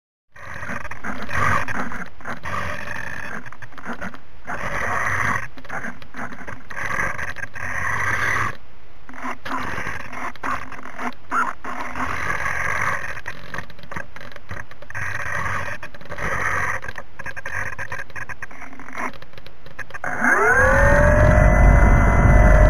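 The ParkZone Spitfire model's electric motor and propeller spin up from rest to full power about 20 seconds in: a rising whine that settles into a steady high drone, the full-throttle takeoff run. Before that, an unsteady rough noise rises and falls about once every second or two.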